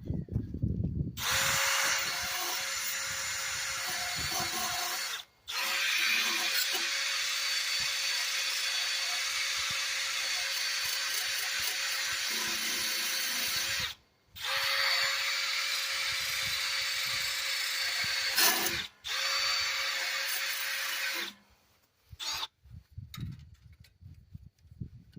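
Drill spinning a wire wheel against the mower engine's intake ports, scrubbing old gasket residue off the metal. The drill runs four times with short stops between, the longest run about eight seconds, with a steady whine under the scrubbing; then it stops.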